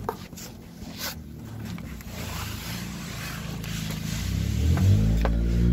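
Rustling and scraping of clothing and cardboard as someone gets down and slides under a truck, with handling noise from a handheld camera and a few small knocks. A low drone swells near the end.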